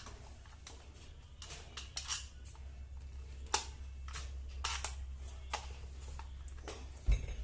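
Scattered small clicks and taps of a screwdriver and screws against a plastic wall socket faceplate as it is screwed back onto the wall box, over a low steady hum.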